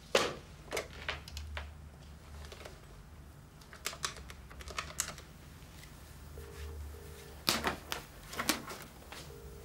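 Desk telephone receiver picked up with a sharp clack, then a number dialled in a run of light clicks, with a few more handling knocks. From about six seconds in, the British double-ring tone of an outgoing call ('brr-brr') sounds twice, about three seconds apart, showing the line is ringing at the other end.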